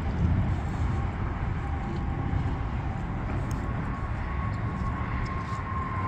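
Outdoor city background noise: a steady low rumble of distant traffic, with a faint high tone that slowly falls in pitch in the second half.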